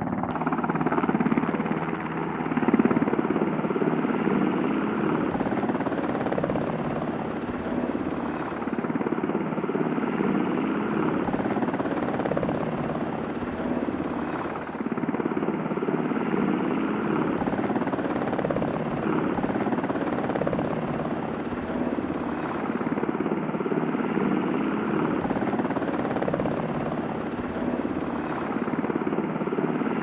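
Military helicopter in flight, its rotor and engines running steadily with slow swells in level.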